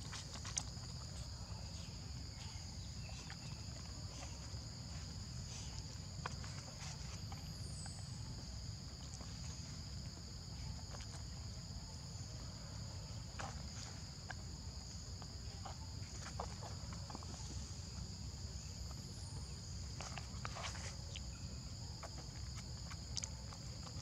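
Steady high-pitched insect chorus, two unbroken high tones, over a low rumble, with faint scattered clicks and rustles.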